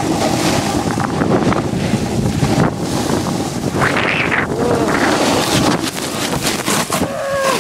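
Wind buffeting the microphone of an iPod Touch carried downhill on a snowboard, mixed with the rough scraping of board edges on hard-packed snow.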